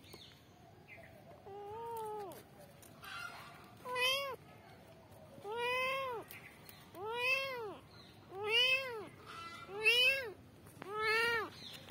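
A young kitten meowing over and over: a soft meow about two seconds in, then six louder meows, each under a second and rising then falling in pitch, about one every second and a half and growing louder. These are a kitten's calls for its mother.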